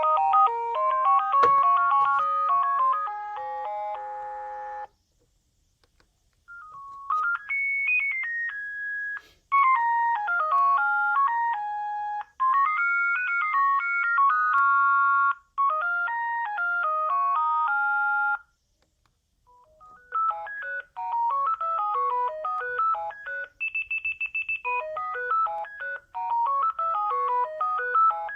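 Sagem myX-1 Trio mobile phone playing its built-in ringtones one after another: simple beeping electronic melodies, each cut off after some seconds with a short silence before the next begins. Three tunes are heard, the last with a warbling trill partway through.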